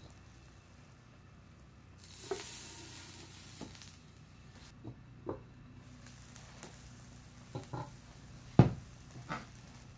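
A hot frying pan gives a knock and then a couple of seconds of sizzling as its lid is put on. After that come several light knocks of the pan lid, the loudest one about three-quarters of the way through.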